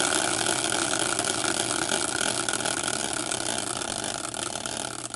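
Homemade prize wheel, a large caster wheel on a wooden stand, whirring as it spins freely after a hand spin. The sound slowly dies down as it slows and begins to break into separate clicks near the end.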